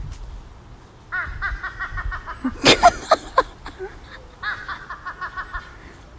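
A crow giving two runs of rapid, evenly spaced laugh-like notes, like a person's 'ha-ha-ha', with a few louder, harsher sounds between the two runs.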